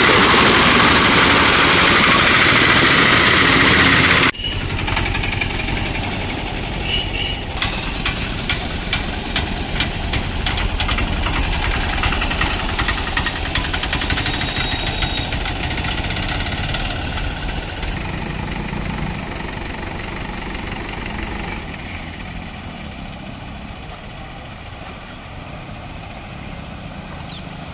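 Auto-rickshaw engines running as the three-wheelers wade through floodwater, with water splashing at the wheels. A loud, even rush of splashing water stops abruptly about four seconds in. Then a rickshaw's engine putters with a rapid ticking and slowly fades as it pulls away.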